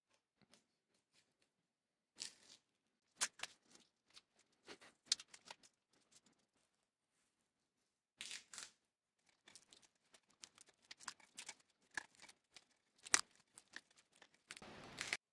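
Handlebar tape being wound around drop handlebars by hand: scattered soft rustles, crinkles and small taps as the tape is stretched and pressed on. There is a longer tearing noise of about half a second near the end.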